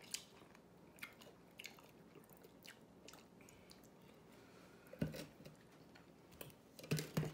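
Chewing fried chicken wings up close, with scattered wet mouth clicks and smacks. A few louder smacks come about five seconds in and again near the end.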